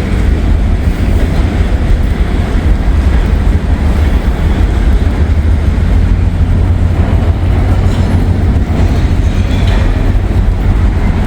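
Local freight train rolling past on the tracks, a steady loud rumble of wheels on rail.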